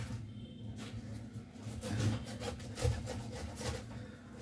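Kitchen knife sawing through a whole pineapple's tough rind and fibrous flesh, cutting it into round slices: quiet, irregular back-and-forth strokes.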